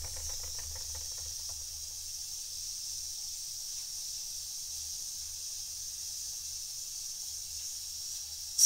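Steady high hiss of steam leaking from the whistle valve of an Empire No.62 toy steam engine, which leaks badly. A faint low pulsing from the running engine sits underneath, and there is a sharp click at the very end.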